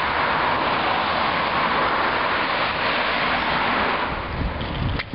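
Road traffic passing on a town street: a steady rush of tyre and engine noise from cars and an articulated city bus. A low rumble comes in near the end.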